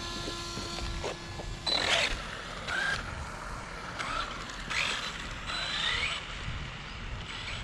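Arrma Granite RC truck's stock BLX 3200 kV brushless motor whining in several short bursts that rise and fall in pitch as the throttle is blipped.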